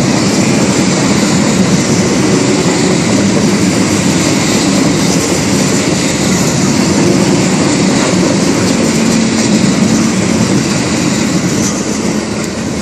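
Open-top coal hopper cars of a freight train rolling past on the rails: a loud, steady noise of steel wheels on track that starts to fade near the end.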